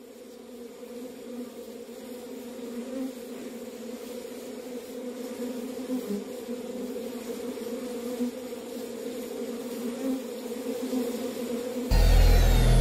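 A steady buzzing drone swells gradually out of silence and grows louder. Near the end, loud electronic music with deep bass cuts in suddenly.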